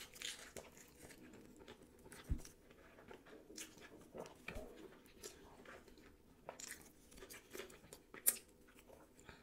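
Close-miked chewing of a mouthful of sushi roll: soft wet mouth sounds and small clicks, with two sharper clicks, one a little past two seconds in and one near the end.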